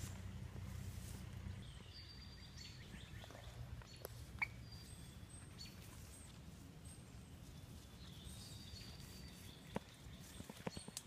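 Birds calling in woodland, several short high chirps, with footsteps brushing through undergrowth and a few sharp twig snaps, the loudest about four seconds in and more near the end. A low rumble fades out after about two seconds.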